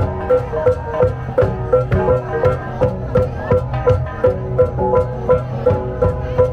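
Ba Na cồng chiêng gong ensemble playing: many hand-held gongs struck in an interlocking rhythmic pattern, about three strikes a second, their tones ringing on and overlapping.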